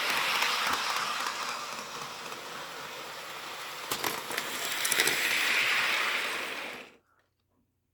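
LEGO train running along plastic track: a steady rolling whir, with a few sharp clicks about four seconds in and a swell around five to six seconds. It cuts off abruptly near the end.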